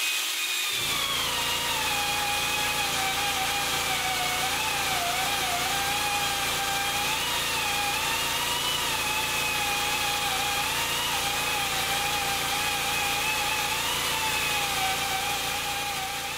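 Die grinder with a small Scotch-Brite disc touching up a cast V-belt pulley: a steady high whine whose pitch drops in the first couple of seconds, then wavers as the disc is worked against the metal, over a steady lower hum. It begins to die away at the very end.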